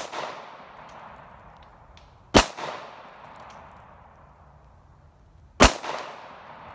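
Glock 19 9 mm pistol firing three single shots about three seconds apart, the first right at the start. Each shot is followed by a fading echo.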